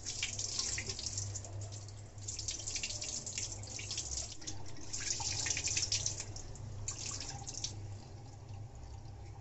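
Tap water running into a steel bowl of soaked chickpeas and splashing as fingers swish them about to rinse them, the splashing coming and going in several spells.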